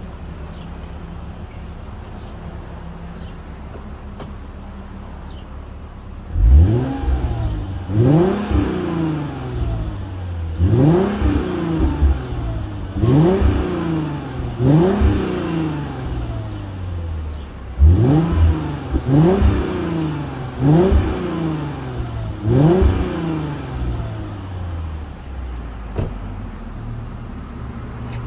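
Mercedes-Benz W211 E320 exhaust fitted with an E55 AMG cat-back system (resonator and mufflers), heard at the tailpipes. The engine idles steadily, then from about six seconds in it is revved about nine times, each quick blip rising in pitch and falling back to idle, with a raspy note.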